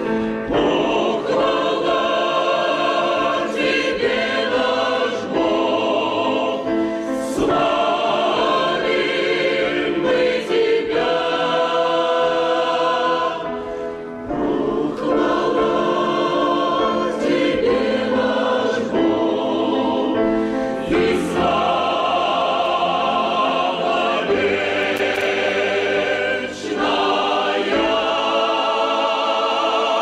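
Mixed choir of men's and women's voices singing a Russian hymn in sustained chords. The phrases are long, with brief breaks about fourteen seconds in and again near the end.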